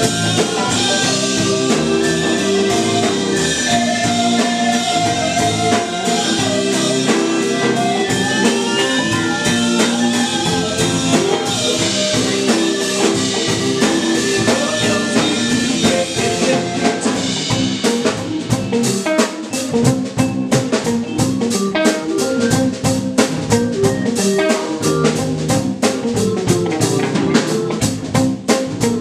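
Live band playing loudly: two electric guitars and keyboards over a drum kit. From about 18 seconds in the drums come forward with rapid, sharp hits.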